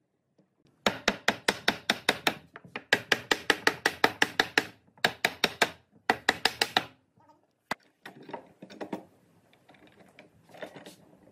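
Rapid, even hammer taps on pine framing, about eight a second in runs of one to two seconds with short breaks, knocking the stretcher joints of a table base home. Quieter clatter of wood and a pipe clamp being handled follows near the end.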